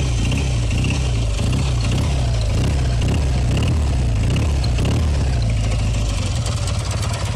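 Kawasaki W1SA 650 cc parallel-twin motorcycle engine being revved in a series of quick throttle blips, then dropping back to idle near the end. When the throttle opens it makes a hard metallic clicking that adjusted tappets have not cured, later traced to a light seizure in the left cylinder and knocking from play between the connecting rod and crank.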